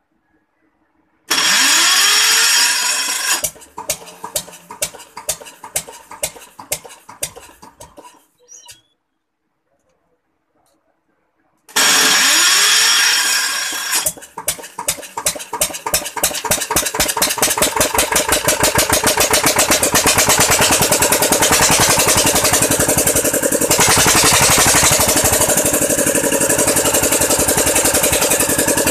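Kirloskar DA20 diesel engine cranked twice on its first start after new piston rings: the first crank turns it over for a couple of seconds and it slows to a stop without running. After a few seconds' pause the second crank makes it fire, its beats quickening until it settles into a steady, even run.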